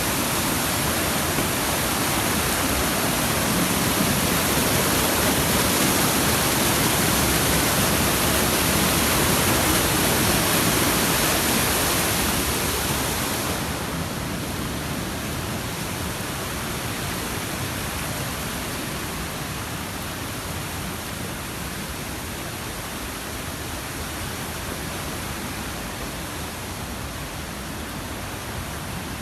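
Rushing water of a small mountain stream, a steady, even noise that becomes quieter about 14 seconds in.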